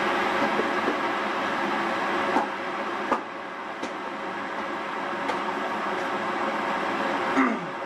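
Electric kettle heating water: a steady hiss with scattered sharp ticks and pops from the heating kettle, and a short falling squeak near the end.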